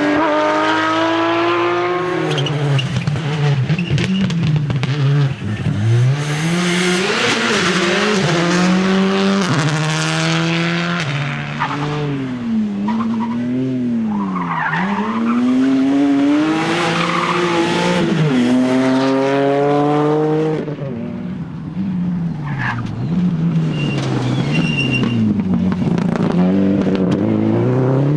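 Rally cars' engines revving hard, the pitch climbing through each gear and dropping sharply on shifts and braking, over and over as the cars accelerate and slow through the stage.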